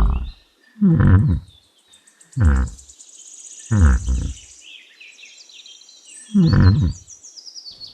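Yak grunting: five short, deep grunts, each falling in pitch, spaced a second or two apart. Faint high chirping runs behind them.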